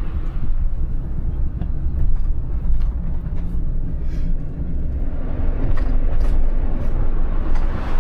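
Road and engine noise inside a moving Winnebago Travato camper van: a steady low rumble, with a few faint clicks and rattles.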